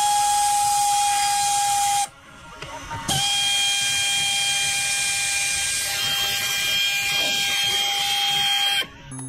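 Pneumatic air ratchet running: a steady hiss of exhaust air with a held whine. It stops about two seconds in, starts again a second later, and cuts off near the end.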